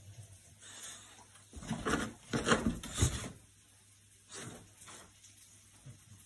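Bulldog sniffing and snuffling with its nose down at a cut lemon: a run of short, loud sniffs about two to three seconds in, another about four and a half seconds in, and softer ones toward the end.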